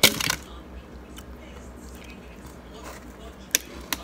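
Loud crunch of a bite into a compacted shaved-ice cube right at the start, then quieter chewing of the ice, with two short sharp crunches near the end.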